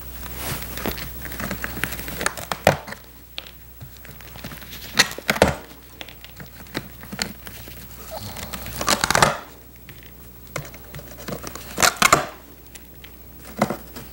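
Old vinyl seat cover being worked off a bucket seat frame: irregular sharp clicks and snaps as metal hog rings are cut and pried loose with pliers, with several louder bursts of the old vinyl and foam tearing and crinkling.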